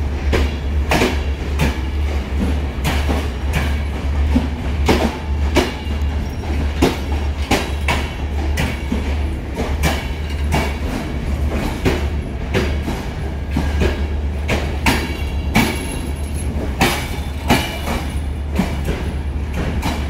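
A vehicle ride: a steady low rumble with repeated clicks and knocks about one to two times a second, and a faint high squeal now and then.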